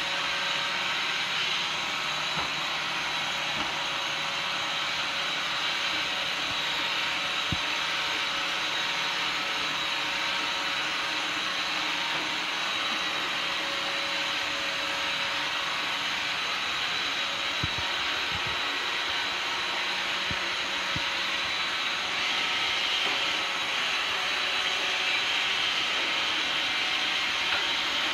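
Robot vacuum running steadily on a tile floor: an even motor whir and brush hiss with a faint steady whine, and a few faint knocks along the way.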